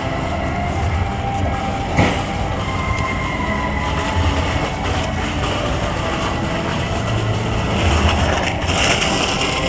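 Tokyu Setagaya Line tram, a 300 series car, running slowly along the rails, with a low rumble, a faint steady whine and a single click about two seconds in. A hiss swells near the end.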